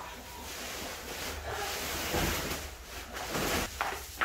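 Woven plastic sacks full of rice rustling and scraping as they are shifted and stacked by hand, in a few swells of noise, with a sharp knock at the very end.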